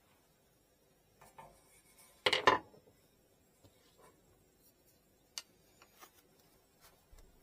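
Small hard objects being handled on a work surface: a short clatter of two knocks about two seconds in, then a few scattered light clicks.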